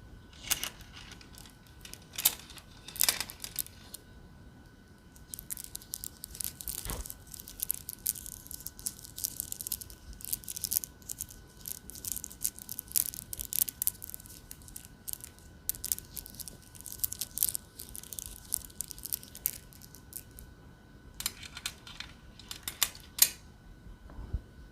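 An ASMR trigger sound: quick, crisp crackling and clicking in bursts, thickest through the middle stretch.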